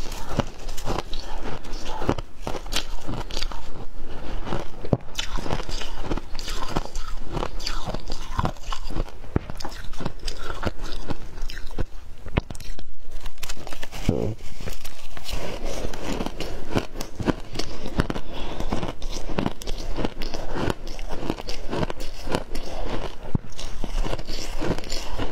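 Chunks of ice coated in matcha powder bitten and chewed, a dense run of crisp crunches and cracks with a short pause about halfway through.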